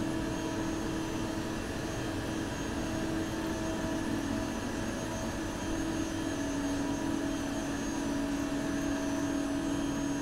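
Traub TNA480 CNC lathe running: a steady machine hum with a constant low tone and a fainter higher one over an even whir.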